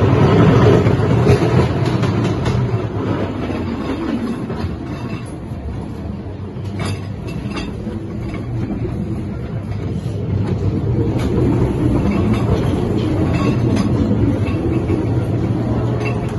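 Ghost train ride car rolling along its track: a steady low rumble with scattered clicks and knocks from the wheels, loudest in the first second or two.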